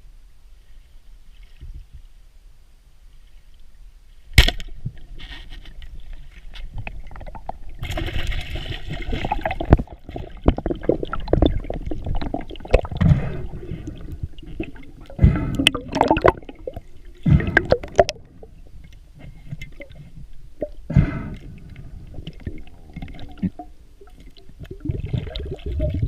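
Water gurgling and sloshing around a camera in the water, with irregular knocks and surges. There is one sharp click about four seconds in.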